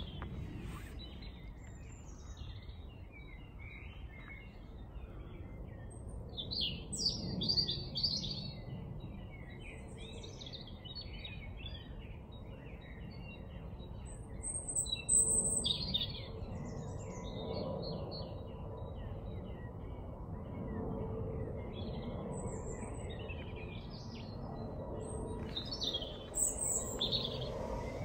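Several birds singing and calling in short, scattered chirps, over a steady low background noise.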